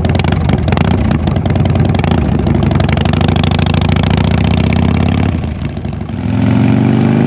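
2015 Harley-Davidson Dyna Wide Glide's Twin Cam 103 V-twin running loud through Vance & Hines 3-inch slip-on mufflers, most likely with the baffles removed. It holds raised revs, drops back about five seconds in, then revs up again near the end.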